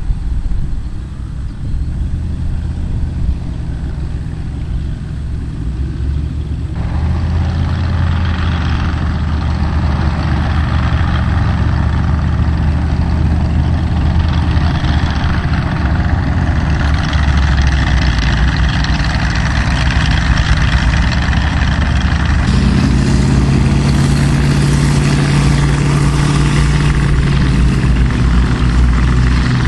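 Engines of WWII military convoy vehicles running, the sound growing louder as the vehicles come on. About three quarters of the way through, a different engine note takes over.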